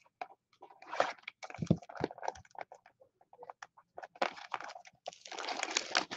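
Cardboard box of trading-card packs being handled and opened: scattered scrapes, taps and rustles of paperboard, with a longer tearing sound near the end.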